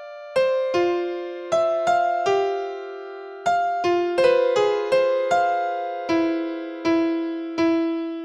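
Background music: a simple keyboard melody of single struck notes that ring and fade, about two a second.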